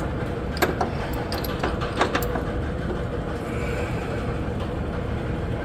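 Steady background drone with a faint hum. A few light clicks and taps come about half a second in and around two seconds in, as hands handle the fittings and air line at the air strut.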